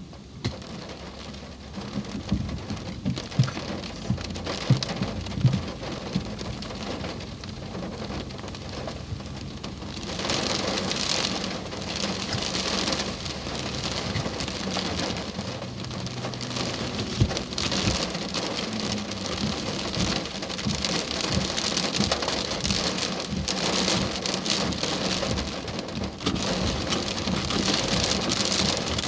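Heavy rain pouring during a thunderstorm. It turns much heavier about ten seconds in, with scattered sharp drop taps before that and a low rumble underneath.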